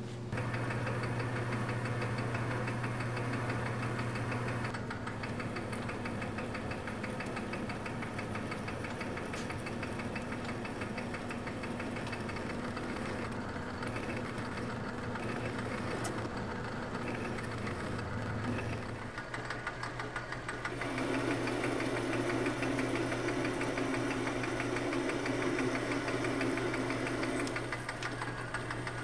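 Logan metal lathe running under power with the four-jaw chuck turning, a single-point tool cutting an internal 10 TPI thread in the bore of a chuck adapter. A steady motor and drive hum, with a louder, harsher stretch of cutting noise a little past two thirds of the way through.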